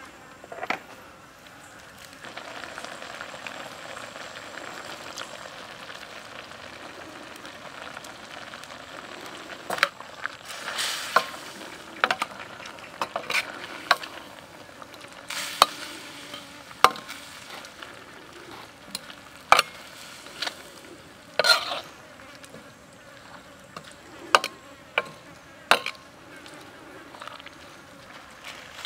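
Vegetables sizzling in a steel wok while a metal spatula stirs them, with repeated sharp clinks and scrapes of the spatula against the wok. The sizzle comes up about two seconds in.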